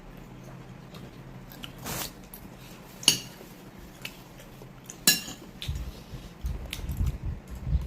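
Cutlery clinking against a dish during a meal: a soft clink, then two sharp ringing clinks about two seconds apart, followed near the end by a run of low bumps.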